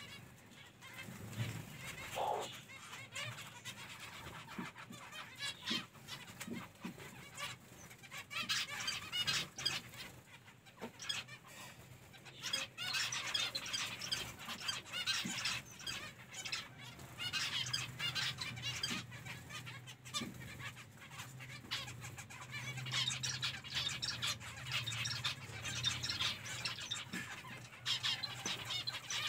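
A flock of captive zebra finches calling: many short, high chirps overlapping, sparse at first and getting busier about a third of the way in.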